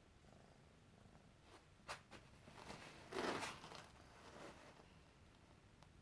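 Soft animal breathing: a few breath-like swells in the middle, the loudest about three seconds in, with a sharp click just before two seconds in.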